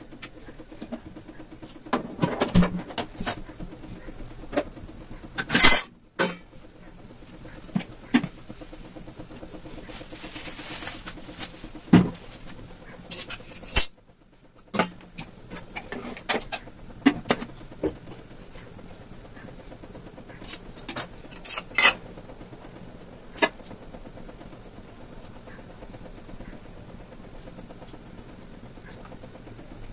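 Scattered knocks and clinks of steel kitchen utensils, a steel ladle being set into a pan and onto a pressure cooker's lid, over a steady low hum.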